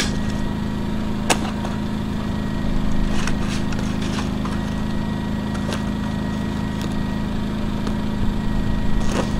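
A small engine running steadily at an even idle, a constant hum, with a few faint knocks scattered through it.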